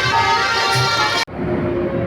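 Bus telolet horn (Basuri multi-tone horn) playing a tune of held, stepping notes. It breaks off suddenly a little past halfway, and a duller, quieter horn tune carries on.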